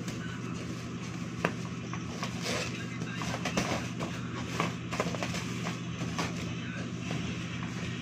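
Clear plastic laundry bag crinkling and rustling as a stack of folded clothes is worked into it, with irregular sharp crackles, the loudest about a second and a half in, over a steady low hum.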